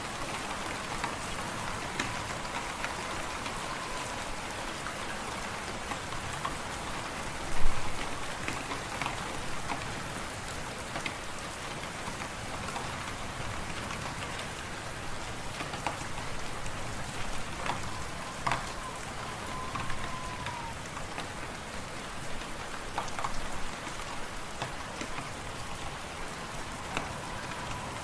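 Wood fire crackling and popping in a fireplace over a steady hiss of wind and driving snow, with one louder pop or thump about eight seconds in. A faint whistle of wind rises and fades a few times.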